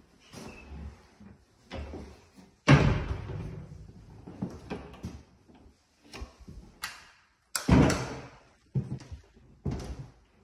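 Wooden cupboard doors being swung open and shut, with knocks and thuds against their wooden frames, and footsteps on bare wooden floorboards. The two loudest thuds come a little under three seconds in and near eight seconds.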